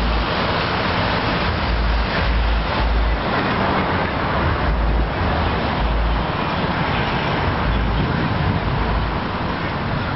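Steady wind noise on the microphone of a camera riding on a moving bicycle, with low buffeting rumbles coming and going, over road traffic noise from passing cars.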